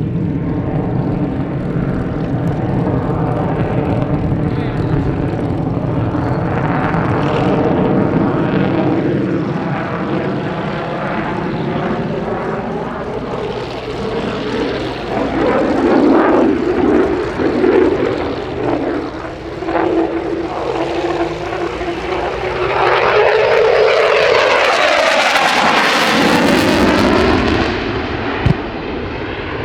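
Lockheed Martin F-35A Lightning II's Pratt & Whitney F135 afterburning turbofan during a flying display: a continuous jet rumble that swells and fades as the fighter passes, with sweeping shifts in pitch. The loudest pass comes about three-quarters of the way through, and a single sharp click is heard near the end.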